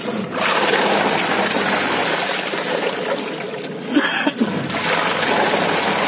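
Water churning and splashing in the wash tub of an Akari twin-tub washing machine as the pulsator starts up after the wash timer is set: a steady rushing wash sound.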